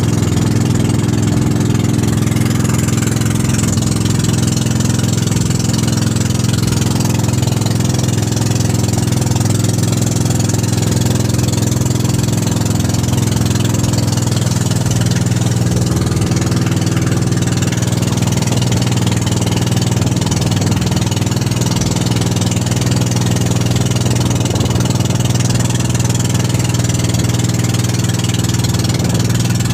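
Engine of a motorized outrigger boat running steadily under way, a constant droning note. About halfway through the engine note shifts slightly lower.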